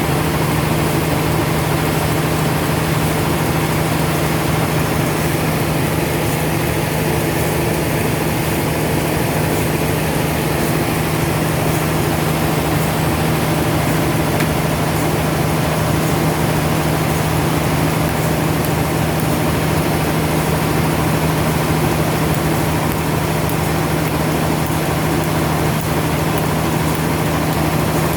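Sawmill machinery running steadily with a constant low hum and no change in pitch or load.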